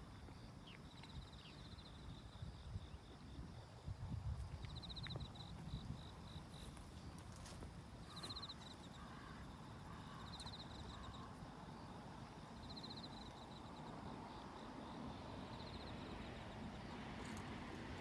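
Short, high-pitched pulsed trills of a calling animal, repeated every two to three seconds over a steady low rumble.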